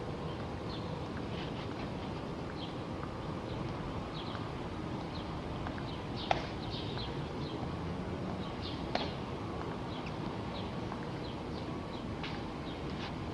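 Steel-tapped shoes of marching tomb guards clicking on the stone plaza in a slow, even rhythm, about two light clicks a second over a steady hiss. Two sharper, louder clicks come about six and nine seconds in.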